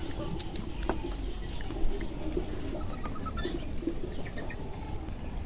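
Birds chirping in short, high notes over a steady background hiss, with scattered faint clicks.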